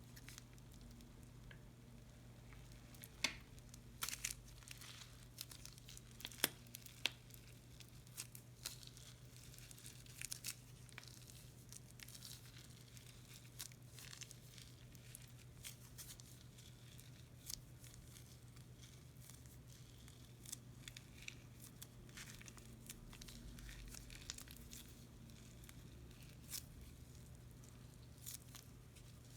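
Faint, scattered crinkling and crackling of slime-making materials, plastic piping bags and bead-filled crunchy slime, being handled and worked, over a steady low hum.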